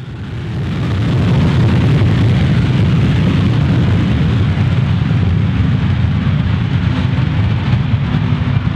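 Avro Vulcan's four Olympus turbojets running as the bomber rolls along the runway: a loud, steady jet-engine noise that swells up over the first second and a half.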